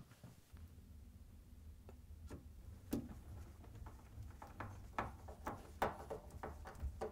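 Phillips screwdriver turning a screw up through the dishwasher's mounting bracket into the underside of a wooden countertop: a run of light, irregular clicks and ticks, sparse at first and coming thicker from about three seconds in.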